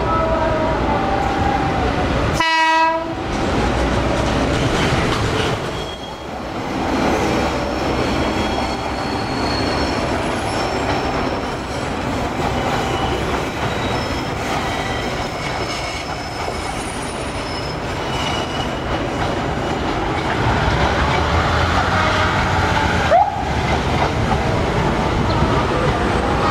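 Passenger trains passing on the rails: a continuous rumble and clatter of wheels on track, with a short train horn blast about two and a half seconds in.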